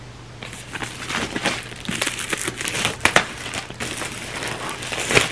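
Clear plastic shrink wrap crinkling and crackling as it is peeled off a laptop box, starting about half a second in. The crackling comes in uneven bursts, with sharper cracks about three seconds in and near the end.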